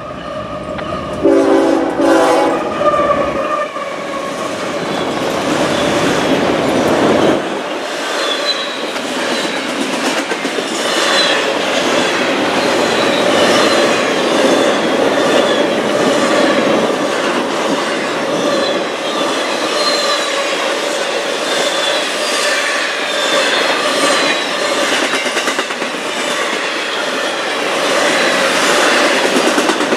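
Diesel freight locomotives approach and pass with a short chord blast on the horn about a second in and a heavy engine rumble that drops away after about seven seconds. A long intermodal train of trailers on flatcars then rolls by fast, its wheels clattering steadily over the rail joints with faint squeals.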